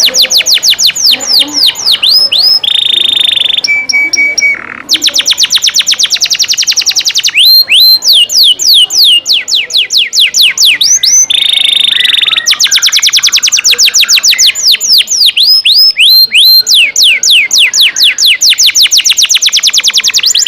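Caged songbird's competition-style song: long rapid trills of sharply down-slurred notes, about seven a second, broken twice by a long held whistle, once dropping to a lower steady note.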